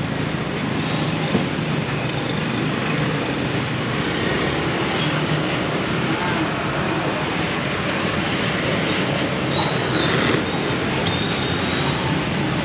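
Steady road traffic noise, an even continuous rumble with no distinct events.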